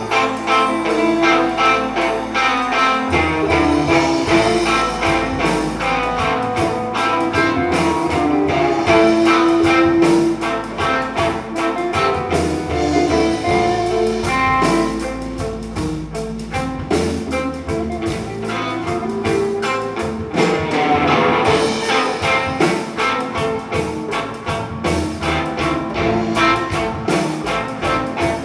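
Live band playing an instrumental: electric guitar leading over bass, acoustic guitar and a drum kit, with a steady beat.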